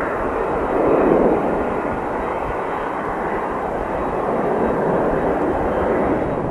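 Boeing 747-400's four turbofan engines at climb power as the jet climbs away after takeoff, heard at a distance: a steady broad jet noise that swells slightly about a second in.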